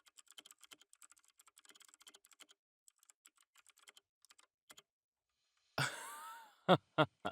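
Typing on a computer keyboard, a run of soft, irregular keystrokes that stops about five seconds in. Near the end, a short breath-like noise and two brief voiced sounds from a person, louder than the typing.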